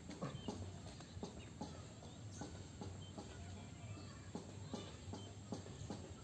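Faint, irregular clicks and taps, several a second, over a low steady hum.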